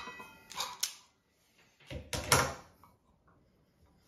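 IRWIN Vise-Grip self-adjusting wire stripper squeezed and released on electrical wires, its jaws gripping and snapping back as they pull off insulation. There are sharp clacks at the start and a louder clack about two seconds in.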